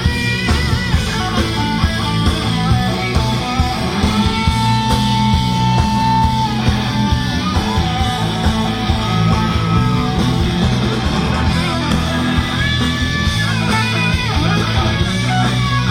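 Live rock band playing an instrumental stretch, an electric guitar lead bending and holding notes over bass and drums.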